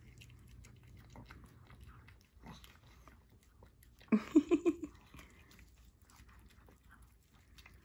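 A Pomeranian puppy licking and lapping ice cream from a paper cup: faint wet smacking clicks. A short burst of voice comes about four seconds in.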